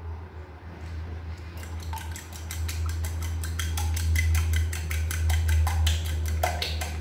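A metal fork beating two raw eggs in a ceramic bowl: rapid clinking taps of metal on china, several a second. They start about a second and a half in and grow louder, over a steady low hum.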